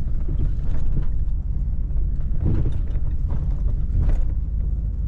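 Pickup truck engine running as the truck rolls slowly, heard from inside the cab: a steady low rumble with scattered creaks and knocks from the cab.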